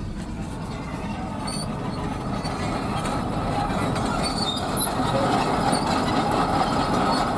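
Tracked bulldozer's diesel engine and steel crawler tracks clanking and squeaking close by, heard from a car driving past on a rough dirt road and growing louder as the car nears it.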